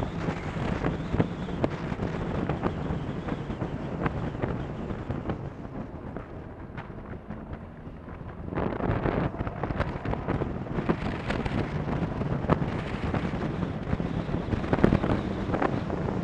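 Wind buffeting a helmet-mounted microphone on a moving Honda VFR1200, with the bike's V4 engine running underneath. It drops quieter from about six seconds in, then swells again about eight and a half seconds in as the bike comes through a hairpin.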